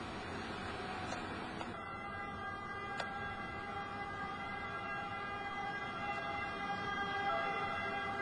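Emergency vehicle siren sounding over a background hiss, its held tones coming in about two seconds in and growing louder toward the end.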